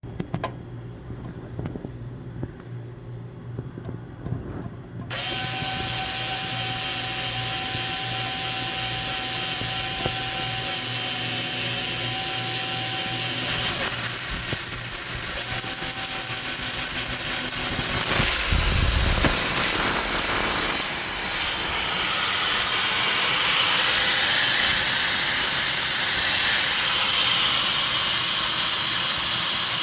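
Steady, loud hiss of escaping pressurized gas during repair of a blocked refrigerant line. It cuts in suddenly about five seconds in over a low hum, grows louder about halfway through, and has a dull thump a little after that.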